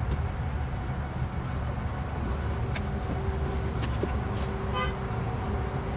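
Steady low rumble of background noise with a faint hum, and a few light clicks and taps from hands working inside a pickup's stripped door.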